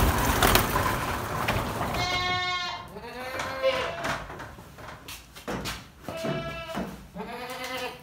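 Boer goats bleating: a loud wavering bleat about two seconds in, lower calls after it, and a longer bleat near the end. A scraping rattle comes before them in the first second and a half.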